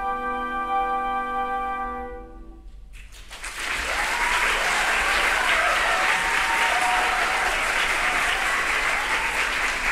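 A flute ensemble holds its final chord, which dies away about two and a half seconds in; about half a second later the audience breaks into applause that keeps going.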